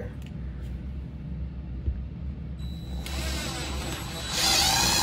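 DeWalt 20V cordless drill driving a screw up through OSB roof decking. The motor whine starts about three seconds in and grows louder about a second later, its pitch wavering as the screw bites.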